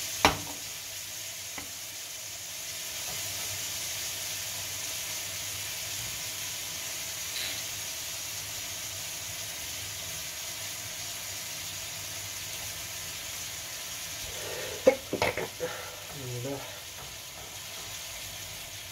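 Diced marinated chicken sizzling in a non-stick frying pan over medium-high heat, a steady hiss. There is a click near the start and a few sharp knocks about fifteen seconds in.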